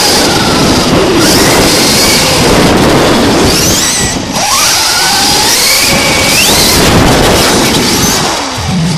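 Onboard sound of an electric RC truck driving fast on concrete, heard from a camera mounted on the truck: a loud, constant rumble of tyres and chassis, with the electric motor's whine rising sharply a couple of times as it accelerates.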